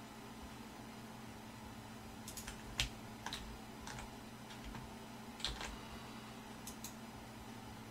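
Scattered computer keyboard keystrokes, a few short clicks in small clusters about two and a half, five and a half and seven seconds in, over a faint steady hum.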